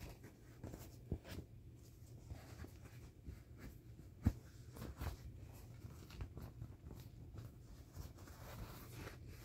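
Hand rubbing, pressing and patting the soft vinyl skin of a 2007 Intex inflatable elephant ride-on: quiet, irregular rubs and light taps on the plastic, the sharpest about four seconds in.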